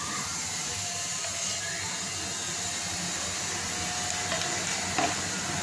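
A steady rushing hiss with a faint steady hum runs under oil being poured into an empty pressure cooker on the stove; a small tick sounds near the end.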